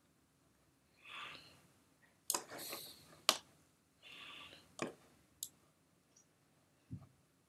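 Faint, scattered clicks of a computer mouse being clicked and moved while painting in a 3D program, about half a dozen sharp clicks with soft breathy noise between them and a dull knock near the end.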